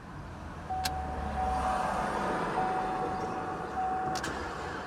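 Car starter motor cranking the engine slowly without it catching: a click as the starter engages, about three seconds of steady whining cranking, then a click as it lets go.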